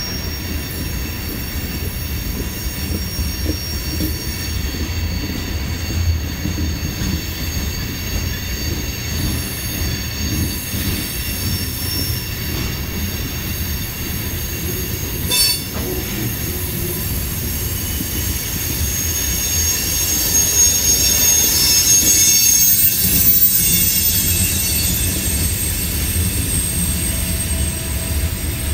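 Coal train's hopper cars rolling across a steel trestle: a steady low rumble with wheel squeal in high ringing tones. One sharp click comes about halfway through, and the squeal swells louder in the last third before easing off.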